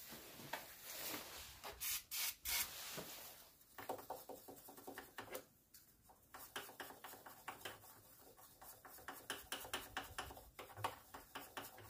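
Quick scraping and rubbing strokes, several a second, of a small hand tool cleaning a part on top of a diesel engine.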